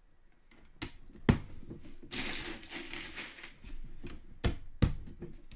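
Lego bricks clicking as pieces are pressed onto a model: several sharp plastic clicks, the loudest about a second in, with a stretch of plastic rattling and rustling in the middle.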